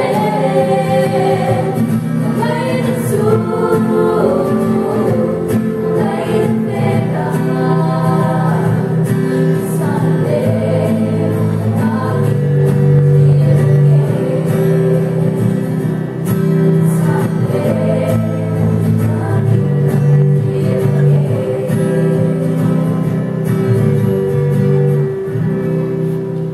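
A small group of women singing a church song together into microphones, accompanied by an acoustic guitar.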